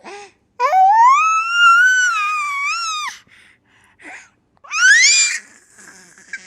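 Baby's high-pitched squeals: one long drawn-out squeal that rises and holds for about two and a half seconds, then a shorter squeal sweeping upward near the end, with little gasps between.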